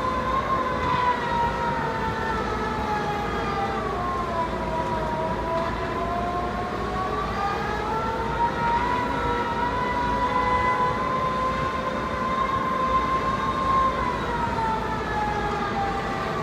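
Piling rig running with a steady high whine whose pitch slowly sags and recovers as the load on the machine changes, over a low engine rumble.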